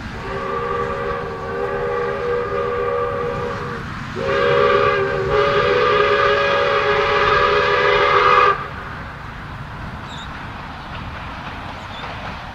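Steam whistle of a South Australian Railways 620-class steam locomotive, sounding two long blasts, each a chord of several notes. The first lasts nearly four seconds; after a brief break the second is louder, lasts about four seconds and cuts off sharply. Wind noise on the microphone follows.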